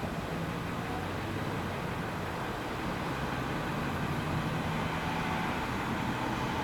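Railroad maintenance-of-way work trucks' engines running, a steady low hum over a constant hiss, growing a little louder past the middle as a truck drives across the crossing.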